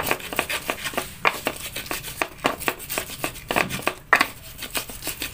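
Pestle crushing and grinding shallots and garlic in a mortar (cobek): an uneven run of knocks and scrapes as a spice paste is ground.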